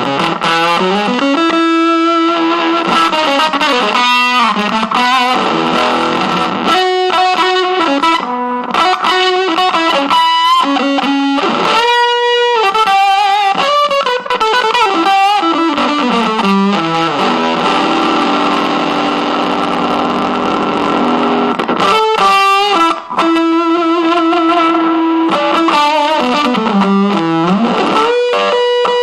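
Electric guitar played through a Fuzz Aldrin one-knob fuzz pedal, giving a distorted tone. It plays single-note lines with pitch slides and some held notes.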